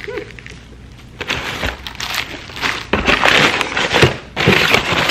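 Plastic and paper packaging crinkling and rustling in irregular bursts as an item is unwrapped and handled, louder from about three seconds in.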